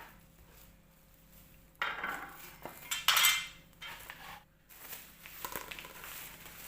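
Dishes and cutlery clinking and clattering, a string of knocks and scrapes that starts about two seconds in.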